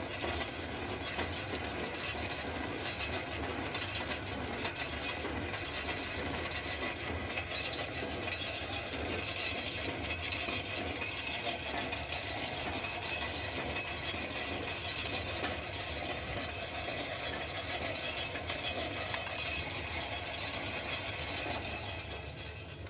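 Line-boring machine running steadily, its drive and gearing turning the boring bar as the cutter machines out the worn pin bore. A continuous mechanical running noise with a thin, steady high whine over a low hum.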